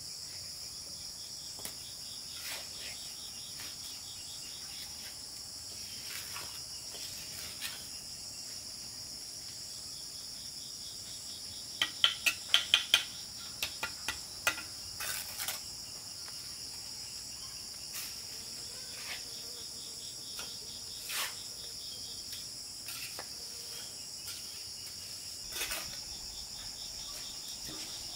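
A steady high-pitched insect chorus, with scattered clinks and knocks of bricks being set and tapped into mortar. About halfway through comes a quick run of about six sharp knocks, the loudest sounds here.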